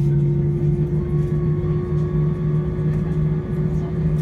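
Jet airliner's engines heard from inside the passenger cabin: a steady, loud hum with low tones, one of them rising slightly in pitch as the engines run on the ground before takeoff. A fainter high whine joins about a second in.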